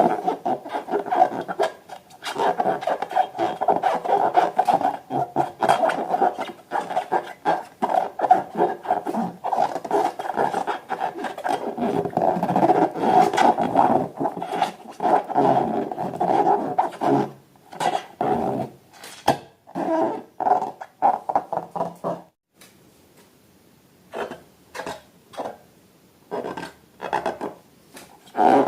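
Rubber balloons and slime being worked by hand: a dense run of squeaky, squelching rubbing with many small crackles. It stops about three-quarters of the way in, and scattered short squishes follow.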